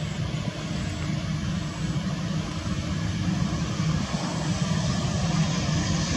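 Airbus A320's twin jet engines at takeoff power as the airliner rolls down the runway: a steady deep rumble with a hiss over it, growing slightly louder.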